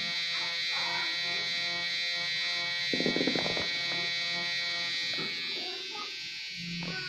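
Permanent-makeup tattoo machine buzzing steadily while its needle works eyeliner pigment into a practice skin, with a brief scratchy noise about three seconds in.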